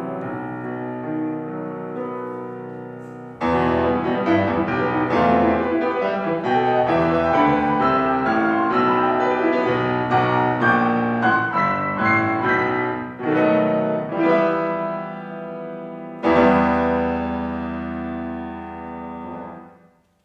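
Piano playing: a held chord fading away, then a quick, loud passage of many notes from about three seconds in, closing with a final chord that is held and dies away near the end of the piece.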